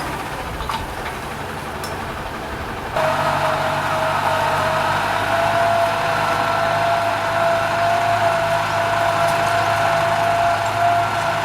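Kubota M9540 tractor's diesel engine running steadily with a constant whine over its low drone. The sound is quieter for about the first three seconds, then jumps abruptly louder and holds steady.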